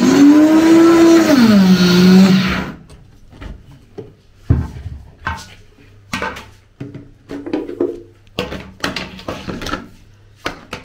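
Countertop blender grinding dry cocoa beans in a short burst: the motor starts, its pitch rises and then sinks as it bogs down under the load, and it stops after about two and a half seconds. Then comes a run of knocks and clatter as the plastic blender jar is lifted off the base and handled.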